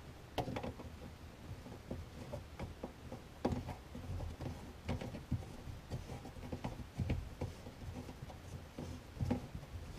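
Plastic slip nut being hand-tightened onto a plastic P-trap: irregular small clicks and rubbing of the plastic threads and fingers on the pipe.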